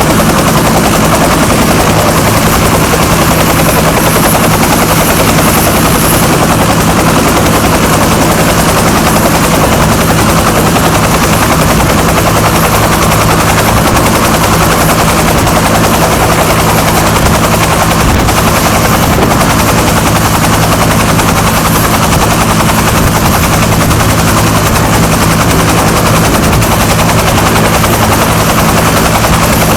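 Bell UH-1H Huey helicopter running loud and steady: the whine of its T53 turboshaft engine under the fast, even chop of its two-bladed main rotor.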